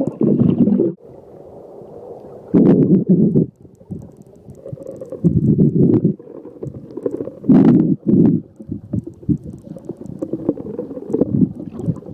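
Water heard through a phone's microphone held underwater: a low, muffled rumble with heavier sloshing surges about every two to three seconds.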